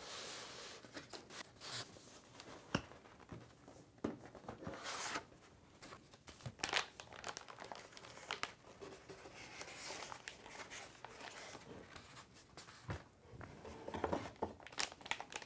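Cardboard box and foam packaging being opened and handled, with a plastic anti-static bag crinkling, coming and going irregularly with a few sharp taps and clicks.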